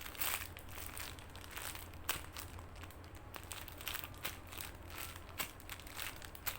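A foam squishy toy being squeezed and handled close to the microphone, giving irregular crinkling crackles, several a second, over a steady low hum.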